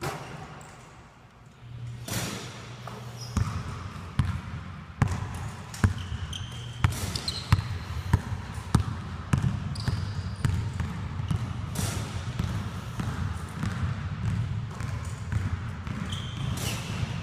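Basketballs bouncing on a gym's hardwood floor during a shooting drill: a string of irregular sharp bounces, with a few short high sneaker squeaks and a steady low hum underneath.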